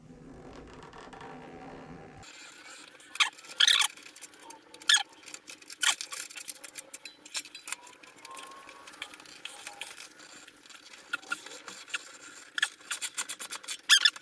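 Metal hand tools clicking, knocking and scraping against a small lawn mower engine while it is being taken apart, in a series of sharp irregular clinks. A steady low hum in the first two seconds cuts off suddenly.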